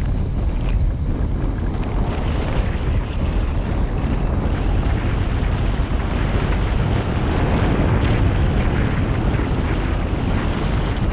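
Car driving on a rough, patched asphalt road: steady low rumble of tyres and engine, with wind noise on the microphone.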